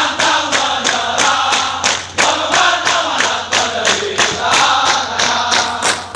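A large group of soldiers chanting and singing a military cheer in unison. A sharp beat, about four strokes a second, keeps time under the voices.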